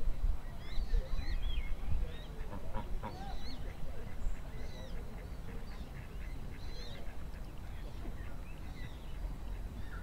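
Small birds chirping in quick, high calls throughout, with a waterfowl call (duck or goose) about two and a half to three seconds in, over a steady low rumble.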